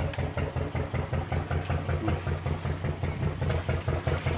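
A fishing boat's inboard engine running steadily with an even, rapid low pulse while the boat is underway.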